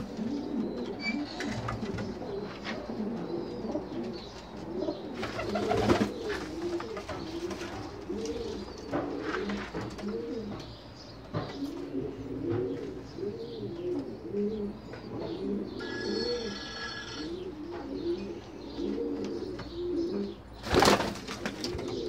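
Many pigeons cooing continuously, their low calls overlapping. A brief steady high-pitched tone comes about sixteen seconds in, and a short loud noise near the end.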